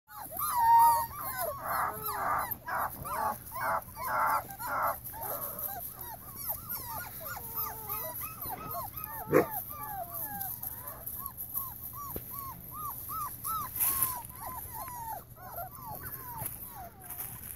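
Akita puppies whining and yelping: a quick run of loud short yelps in the first few seconds, then a steady stream of high arched whimpers, with one sharp knock a little past halfway.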